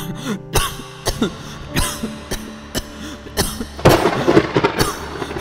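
A young man coughing hard in a repeated fit, about one cough every half second, growing denser near the end, over faint background music.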